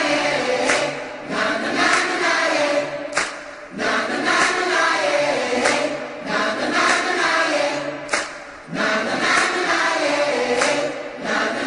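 Background music of a choir singing in long phrases, each lasting about two and a half seconds with a short breath-like dip between them.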